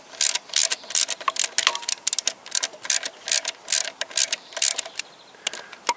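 Ratchet socket wrench clicking in quick runs as its handle is swung back and forth to loosen a bolt, about two to three runs a second; the clicking thins out near the end.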